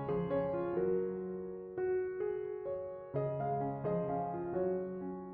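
Soft background piano music: gentle notes struck and left to fade, a slow melody over held chords.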